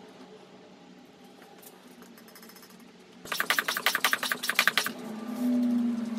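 Bicycle floor pump being worked to inflate a tyre, heard as a rapid rattling run of sharp clicks for about a second and a half in the middle. It is followed by a steady low hum near the end.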